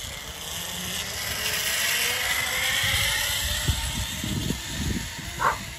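Zipline trolley's pulley wheels running along the cable, a whir that rises in pitch and swells as the rider picks up speed, then eases off.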